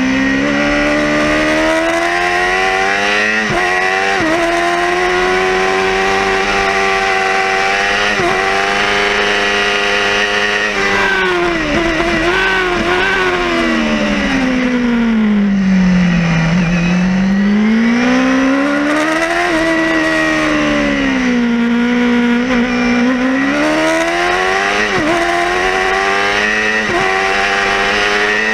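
Yamaha R6 (5EB) 600cc inline-four sport bike engine at racing revs, heard on board: it revs hard with several quick gear changes. About halfway through, the revs fall away slowly into a slow corner and then climb again as the bike accelerates out.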